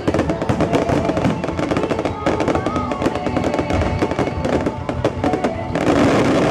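Fireworks display: a dense, continuous crackle of small pops and bangs, swelling louder at about six seconds, with music playing underneath.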